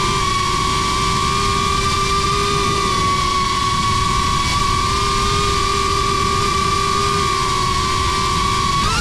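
Cinewhoop FPV drone's brushless motors and propellers whining at a steady throttle over a low rumble, with a quick rise and dip in pitch right at the end.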